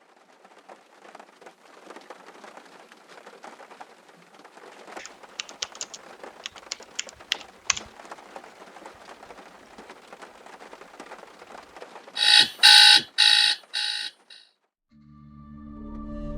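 Faint rustling noise with scattered sharp clicks, then an electronic alarm beeping loudly in four pulses that cuts off abruptly. Low, sustained music begins near the end.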